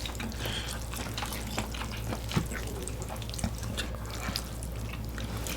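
Kitchen scissors and utensils clicking against a plate while cutting saucy stir-fried squid, with wet, sticky handling sounds. The short clicks come irregularly over a steady low hum.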